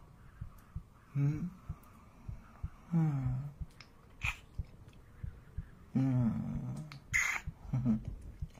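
A man's close-miked wordless vocal sounds: several soft hums or sighs that fall in pitch, with a couple of sharp breaths between them.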